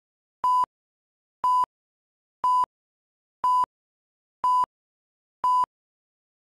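Countdown leader beeps: a short electronic beep of one steady pitch sounding once a second, six times, each beep alike.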